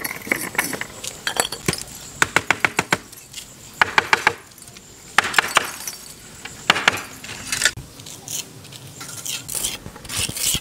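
Hard clinks and taps of hollow red clay bricks knocking together as they are handled and set in mortar, coming in quick clusters of several strikes with short pauses between.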